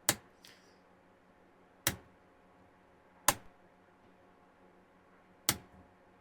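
Mains power switch clicking four times at uneven intervals, as the supply to an LED ceiling light is switched off and on repeatedly to bring out its intermittent flashing fault.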